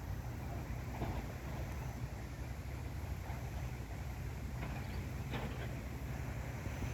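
A few short, faint duck quacks over a steady low rumble.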